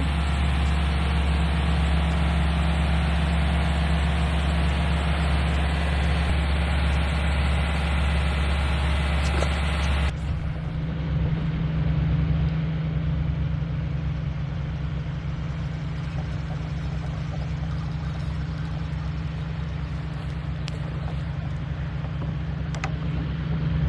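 A steady low hum, like a small engine idling. The hiss above it drops away abruptly about ten seconds in.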